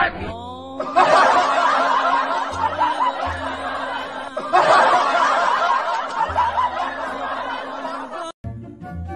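Canned laughter, a group of people chuckling and laughing, over background music; the laughter breaks off briefly about halfway and starts again. A short falling glide-like sound effect comes just before it.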